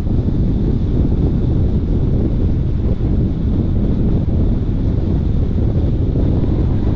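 Wind blowing across the microphone of a camera on a moving car, over the steady low rumble of the car driving on the salt flat.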